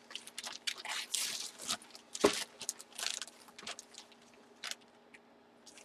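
Crinkling and rustling of a clear plastic bag holding a sports jersey as hands press and smooth it out, in irregular crackles that thin out and stop near the end.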